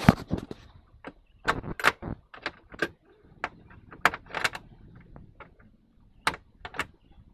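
Irregular sharp knocks, clicks and light rattles of things being handled. The loudest comes at the very start, and the rest fall in small clusters over several seconds.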